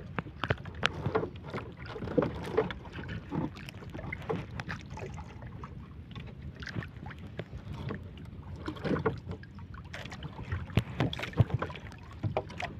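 Irregular knocks and clatter from handling gear and catch in a small wooden outrigger fishing boat, over steady low wind and water noise.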